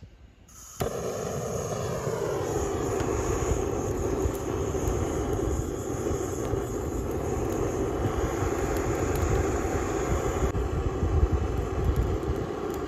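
Handheld butane gas torch lit about a second in: its flame starts suddenly, its pitch drops a little as the flame settles, then it burns steadily. It is aimed into a small stainless-steel box grill to get the fire going.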